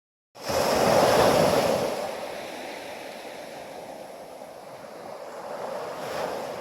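Surf: a wave breaking and rushing in, starting abruptly, loudest in the first couple of seconds, then easing before swelling again near the end.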